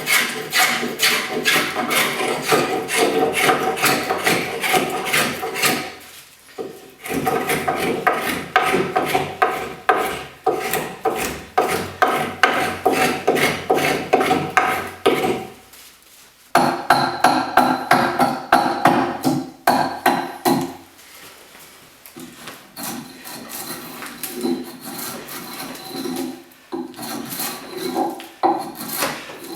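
Hand tool worked in quick, even rasping strokes, about three a second, with a ringing metallic tone under them. The strokes pause about 6 and 16 seconds in, then turn lighter and sparser from about 20 seconds on.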